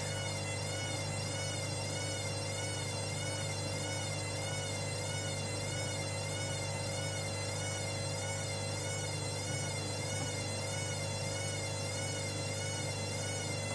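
Hoover Link washing machine spinning an unbalanced load: a steady motor hum and whine whose pitch wavers up and down about once a second. No bearing noise comes through over the spin.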